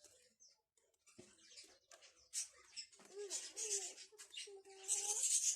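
High-pitched squeaky vocal sounds that rise and fall, over light rustling, starting about three seconds in and getting louder near the end.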